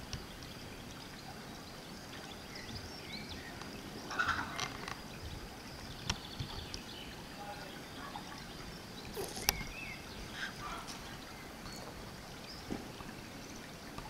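Outdoor field ambience: a steady hiss with scattered short high chirps and a few sharp clicks, the loudest click about nine and a half seconds in.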